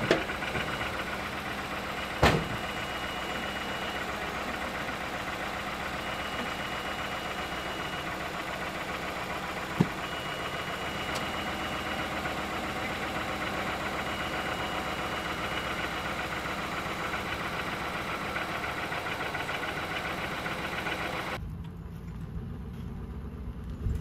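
An engine idling steadily, with a high beep sounding on and off for about two seconds at a time, and a single sharp clank about two seconds in. The engine sound drops away near the end.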